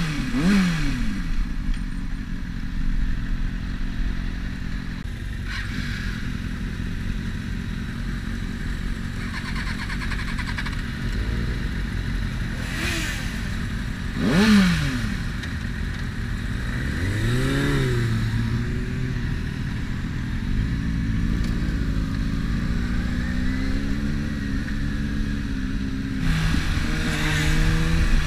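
Sport motorcycle engine heard from the rider's seat over wind rush: it slows down, idles with two brief blips of the throttle about halfway through, then pulls away with the engine note climbing as it speeds up.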